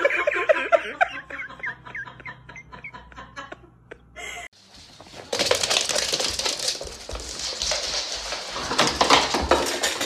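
A person laughing in quick high-pitched bursts that die away after two or three seconds. About four and a half seconds in a steady hissing, clattering noise starts.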